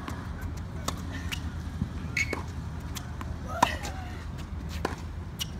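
Tennis balls struck by rackets and bouncing on a hard court in a practice rally: sharp pops about once a second, the loudest a little past the middle, over a steady low rumble.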